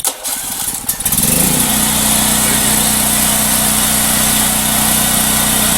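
Senci SD3500E petrol generator started on its electric starter: a brief crank, then the engine catches about a second in, revs up and runs steadily. The fuel valve is shut, so it is running on the fuel left in the carburettor to burn it off before storage.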